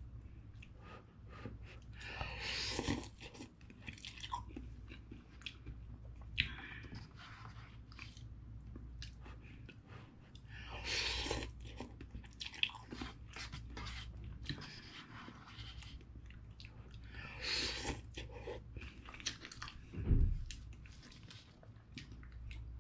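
A person eating instant cup ramen with chopsticks: close-up chewing with frequent small mouth clicks, three longer slurps of noodles spread through, and a low thump near the end.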